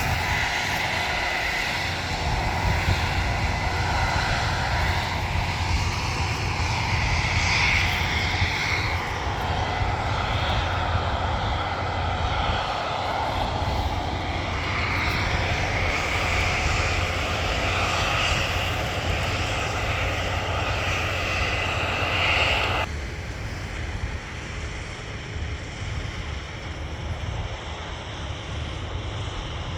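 Harvest machinery engine running steadily under load with a deep rumble; about three quarters of the way in the sound drops suddenly to a quieter, duller level.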